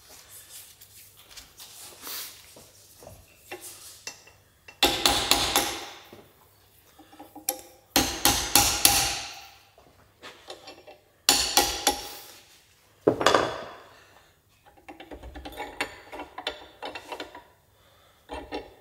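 Loud metal clanks and knocks as a 1950s AEC bus engine's connecting rod is worked at a bench vise to get the old big-end bearing shells out. There are four hard, ringing strikes with lighter rattling and clinking between them.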